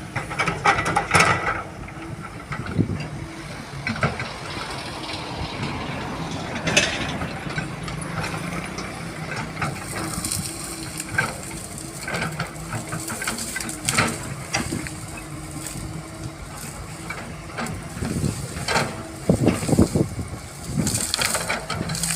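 Caterpillar 320GC excavator's diesel engine running steadily, with frequent short clanks and knocks of metal.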